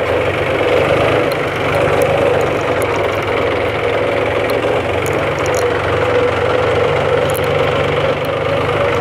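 John Deere 1130 tractor engine running steadily under way, heard from the driver's seat as a loud, even drone with a few faint rattling clicks.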